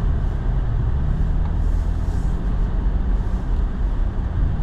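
Four-wheel-drive truck driving, heard from inside the cab: a steady low rumble of engine and road noise.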